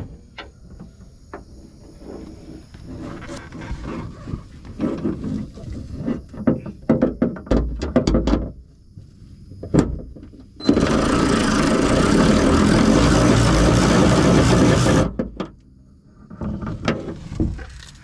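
Socket and extension working the 10 mm bolts that hold a truck's outside door handle: scattered clicks and knocks, then a power tool runs loud and steady for about four seconds, starting and stopping sharply.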